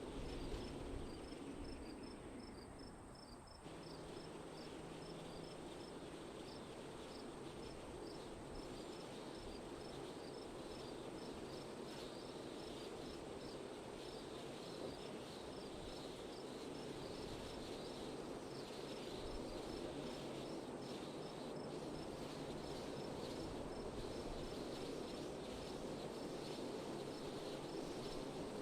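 Steady wind rushing, with crickets chirping in a regular, high-pitched pulse over it.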